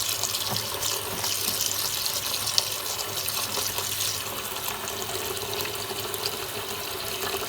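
Kitchen tap running steadily, water pouring over cooked soba noodles in the sink to rinse off starch so they don't stick together.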